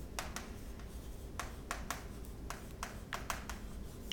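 Chalk writing on a blackboard: a quick series of short taps and scratches as the letters are stroked out.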